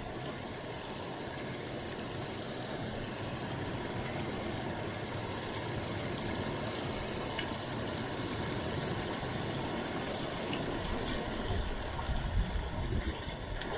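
Steady rush of water pouring over a concrete spillway weir, with a few low bumps near the end.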